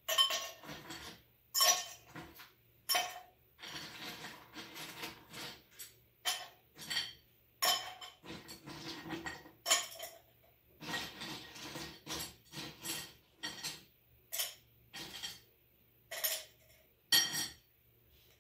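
Ice cubes clinking as they are picked up and dropped one by one into a hurricane glass: an irregular run of sharp clinks and knocks of ice against glass.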